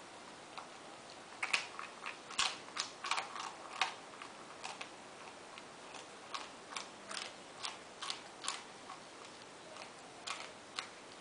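A Spanish greyhound chewing bread: irregular crisp crunches, several a second in a busy run in the first few seconds, then more spaced out.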